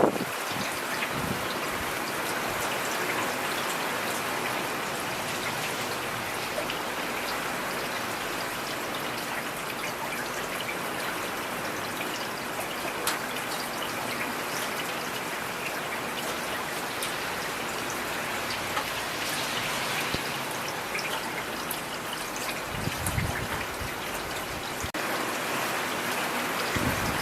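Steady rain falling, a dense hiss with many individual drops ticking on a surface. A low thump comes about 23 seconds in.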